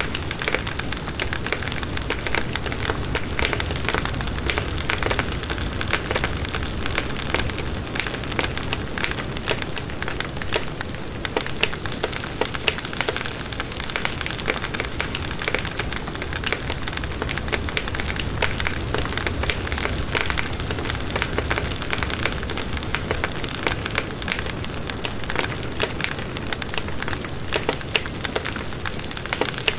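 Bonfire burning and crackling steadily, with many small pops and snaps over a low rush of flame.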